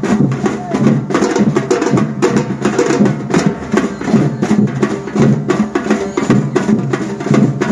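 Batucada percussion band playing a steady, dense drum rhythm, with sharp wood-block-like strikes over the drums.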